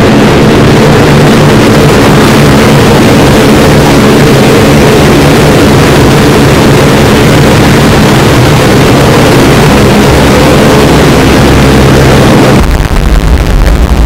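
Extremely loud, distorted sound effect: a steady engine-like roar with a low hum, switching about twelve and a half seconds in to a deep, heavy rumble.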